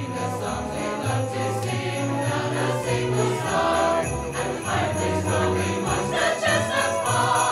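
Holiday music with sleigh bells shaken steadily over a bass line and sustained instrumental notes.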